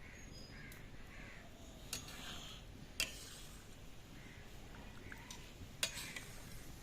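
Crows cawing faintly in the background, several short harsh calls, with a few sharp clicks about two, three and six seconds in.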